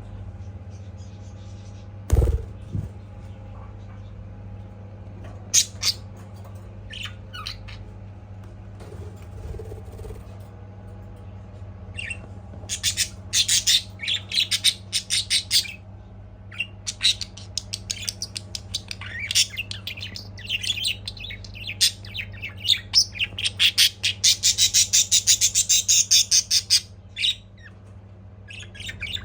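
Budgerigar chirping and squawking: a few scattered calls at first, then from about halfway through a long run of rapid chattering chirps. A single loud thump about two seconds in, over a steady low hum.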